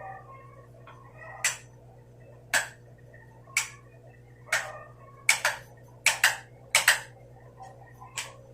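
A series of sharp clicks, about eleven, roughly one a second at first and then in quick pairs, over a steady low hum.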